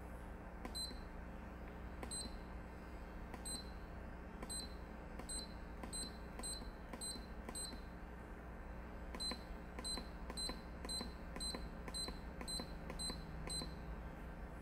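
Short high-pitched keypad beeps, each with a faint click, from a Hot-N-Pop Pro K9 heat alarm as its down and up arrow buttons are pressed over and over to scroll through stored alarms. There are about twenty presses, about a second apart at first and quicker in the second half. Each beep confirms a button press.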